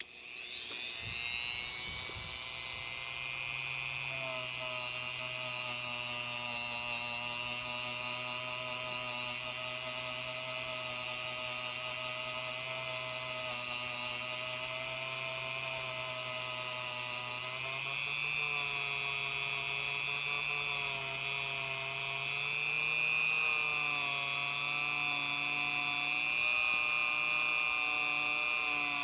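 Dremel rotary tool with a brass wire wheel running at speed, cleaning up metal edges. It spins up at the start and then holds a steady high whine, the pitch shifting a little a couple of times as it works.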